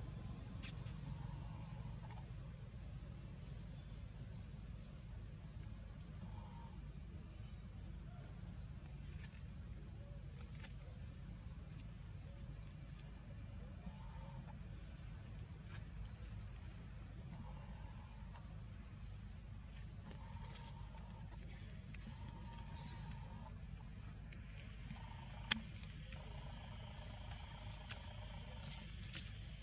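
Insects droning steadily on one high-pitched note over a low rumble, with a few short faint animal calls coming and going. A single sharp click near the end.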